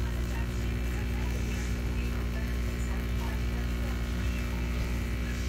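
Osner Yirga Classic espresso machine's pump humming steadily as it pulls an espresso shot through a bottomless portafilter.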